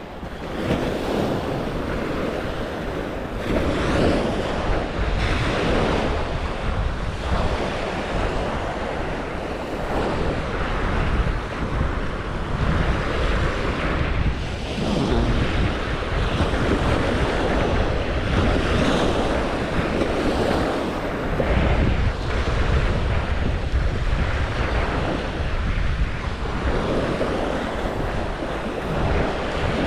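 Surf washing onto a beach, swelling and falling, with wind buffeting the microphone as a steady low rumble.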